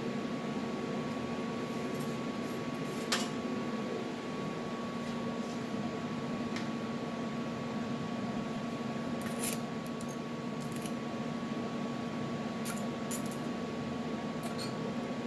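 Stick welding arc burning a 7018 electrode: a steady crackling hiss with scattered sharp pops, over a steady electrical hum.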